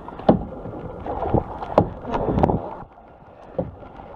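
Kayak paddle strokes: the blades dip and splash in the water several times at uneven intervals, with a brief lull about three seconds in.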